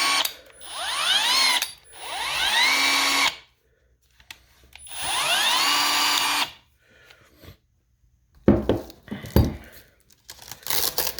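Milwaukee M12 Fuel 12-volt hammer drill/driver running with no load in short trigger pulls. Three times the motor whine rises as it spins up, holds steady for about a second, then stops. Near the end come a few knocks and clatter of handling.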